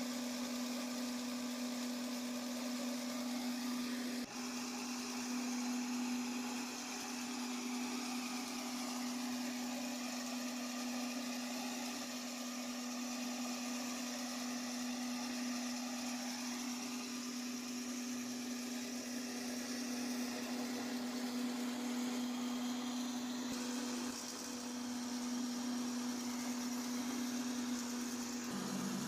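Electric lawn mower motor running at a steady speed: a constant electric hum with a whirring rush of air over it, briefly dipping a little about four seconds in.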